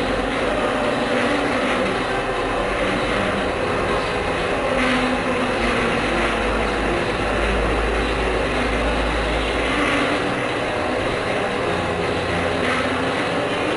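Machinery running steadily, a dense mechanical drone with several steady hum tones, and a low rumble that swells from about six to ten seconds in.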